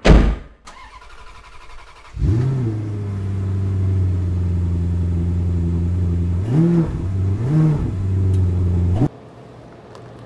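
A loud thump, then a car engine that catches about two seconds in, idles steadily, is briefly revved twice, and cuts off suddenly near the end.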